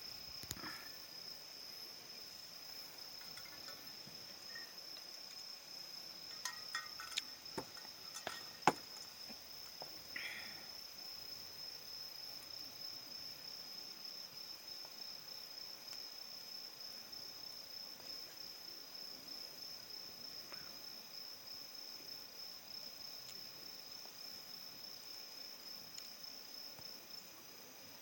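Insects trilling in one steady, high, finely pulsing tone, with a few sharp pops and crackles from a burning campfire about six to nine seconds in.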